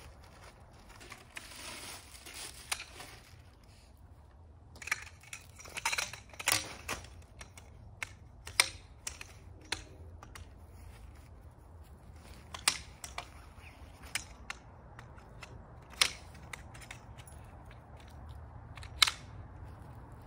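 Sections of a tipi tent's centre pole knocking and clicking as they are handled and fitted together, in scattered sharp knocks with a busier stretch in the middle, over a rustle of tent canvas early on.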